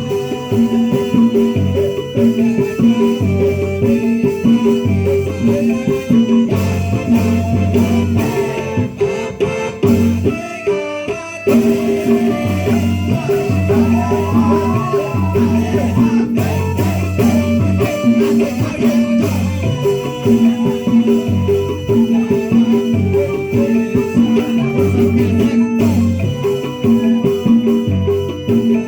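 Music with drums and shaken rattle-type percussion over a repeating low pattern of pitched notes. It dips briefly about ten seconds in, and a wavering melody line comes in around the middle.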